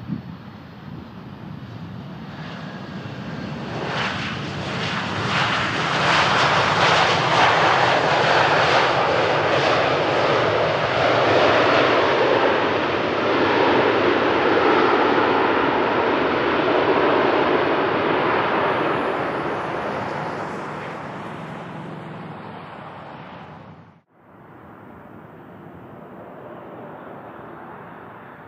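United Airbus A320 jet engines roaring during the landing rollout on a wet runway, building quickly after touchdown as reverse thrust comes on, holding loud, then fading. Near the end there is a sudden cut to the quieter, steady sound of a Southwest Boeing 737 on final approach.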